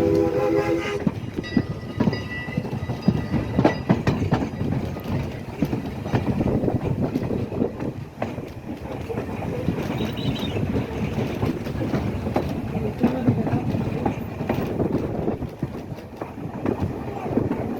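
Steam locomotive's chime whistle sounding a chord, cutting off about a second in, then passenger coaches rolling over rail joints with irregular clicking, knocking and rumbling of wheels and car bodies.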